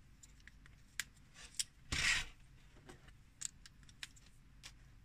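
LEGO Technic plastic parts being handled as pins are pressed into a beam: a few scattered sharp plastic clicks, with one louder, brief scrape of plastic on plastic about two seconds in.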